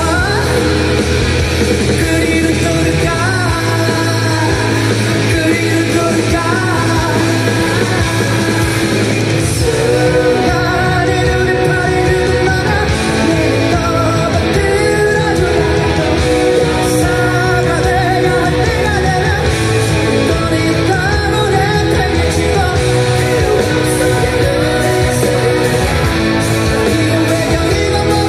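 Live rock band music: a male voice sings over a strummed electric guitar with a full band behind it, loud and steady throughout.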